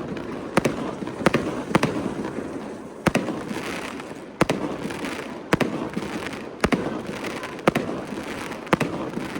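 Fireworks going off: sharp bangs about once a second over a continuous crackle.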